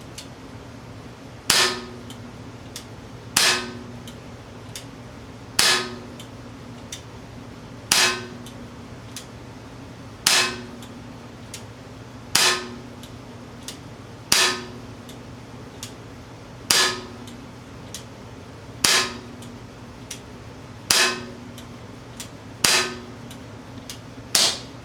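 Umarex Glock 19 CO2 BB pistol firing twelve single shots about two seconds apart, each a sharp crack with a short ring, emptying the magazine.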